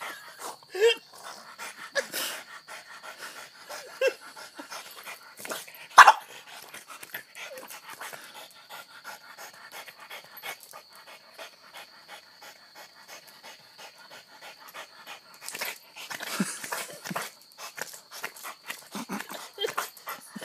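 French bulldog panting hard and giving short growls while it worries its leash, with many small clicks and scuffs throughout. A single sharp knock comes about six seconds in and is the loudest sound.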